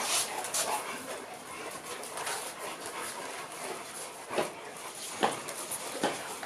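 Several bullmastiffs crowding round for treats, making dog noises, with three short, sharp barks or yips about four, five and six seconds in.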